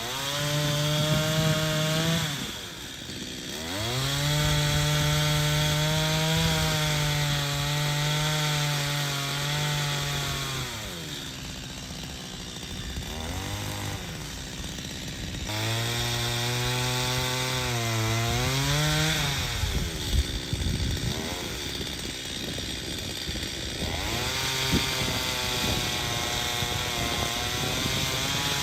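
Stihl MS250 two-stroke chainsaw revved to full throttle in three long bursts while cutting into a Japanese cedar trunk, its pitch sagging and wavering under load, and dropping back toward idle in between.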